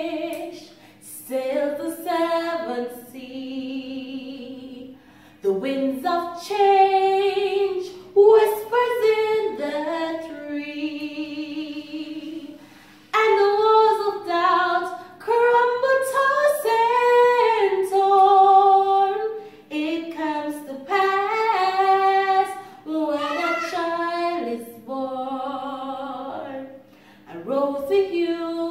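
A woman singing a slow Christmas song solo, in long held phrases with short breaks between them.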